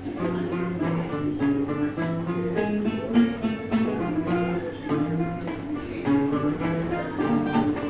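A long-necked, round-backed lute and an acoustic guitar playing a tune together, with quick plucked notes one after another.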